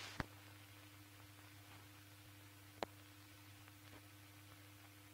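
Near silence: a faint steady electrical hum and hiss, broken by two brief clicks, one just after the start and one about three seconds in.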